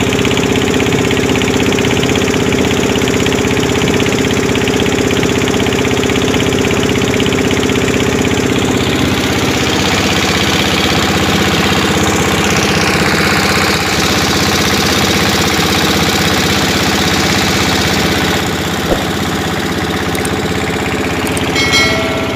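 A pompong motorboat's engine runs steadily as the boat travels. A short electronic chime sounds near the end.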